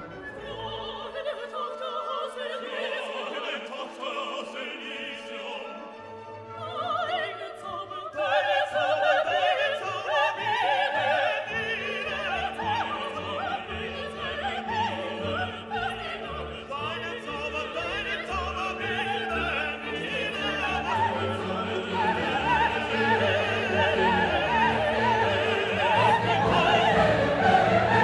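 Classical music: operatic singing over an orchestra, thin at first and becoming fuller and louder about eight seconds in.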